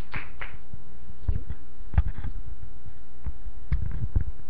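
Steady electrical mains hum in the church sound system, with a few scattered low thumps, the loudest about two seconds in.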